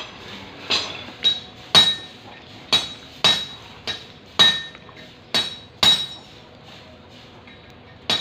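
Farrier's hammer striking metal at a horse's hoof while nailing on a shoe: about ten sharp, ringing strikes in uneven runs, then a pause of about two seconds before one more strike at the end.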